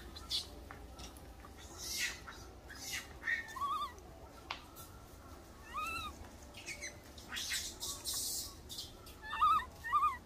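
Baby macaque giving short, thin whimpering cries, each rising and falling in pitch. There are single cries a few seconds apart, then three in quick succession near the end, with brief rustling of dry leaves in between.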